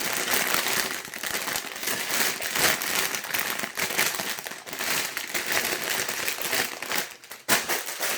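Plastic Lego parts bags crinkling and crackling as they are handled, with a brief lull near the end followed by a sharp crackle.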